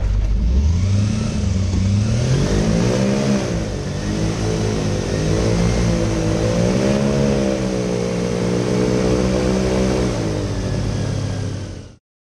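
Airboat engine and propeller running hard, its pitch rising as it accelerates away, then rising and falling as the throttle is worked. The sound cuts off suddenly near the end.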